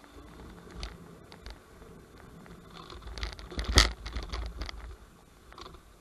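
Electric scooter riding over a rough, wet dirt track: tyres scraping and rattling over the ground, with scattered knocks and one sharp, loud jolt a little before four seconds in.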